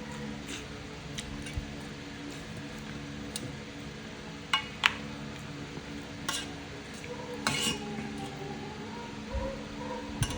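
Spoon clinking and scraping against a bowl of soup while eating, several sharp clinks, the loudest a pair about four and a half seconds in.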